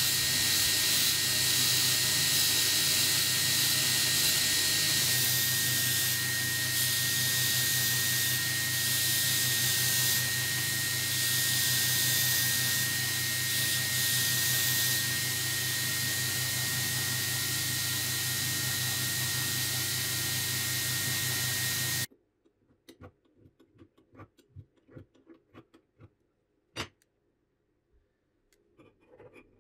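Belt grinder running with a steel saw-blade blank pressed flat against its abrasive belt: a steady grinding hiss over the motor's hum and a thin steady whistle. It cuts off suddenly about three quarters of the way through, leaving faint scattered clicks and handling noises.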